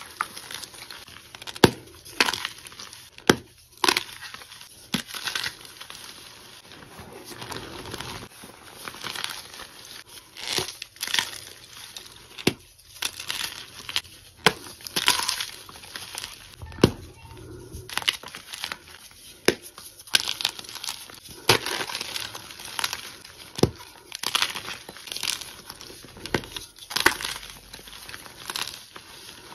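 Cornstarch being squeezed and kneaded by hand, the powder squeaking and crunching, with soft gym chalk blocks crumbling in it. The crunches come irregularly, one or two a second, some much sharper than others.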